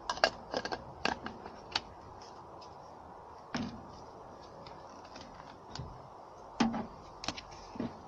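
Plastic clicks and knocks from a CISNO portable espresso machine being taken apart by hand, its cap coming off and its top section handled to open the water reservoir. A quick flurry of clicks in the first two seconds, then a few single knocks spread through the rest.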